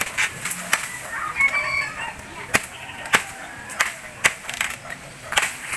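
A bolo chopping into bamboo culms: about eight sharp, irregularly spaced chops.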